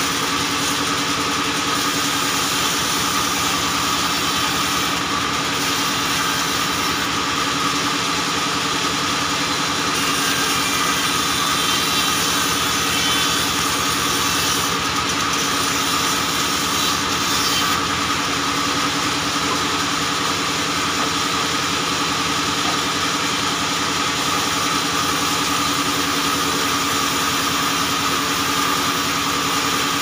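Vertical band saw running steadily while its blade rips acacia logs lengthwise: a constant machine drone with a held low hum and a higher whine.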